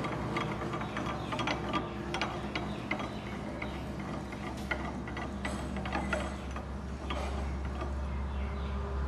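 Old metal lathe's mechanism ticking and clicking irregularly over a low steady hum.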